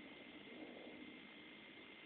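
Near silence: a steady faint hiss with a thin steady tone, and a soft low sound about half a second in.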